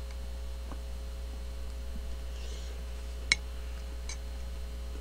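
Steady low electrical mains hum, with a few faint clicks and one sharper click about three seconds in.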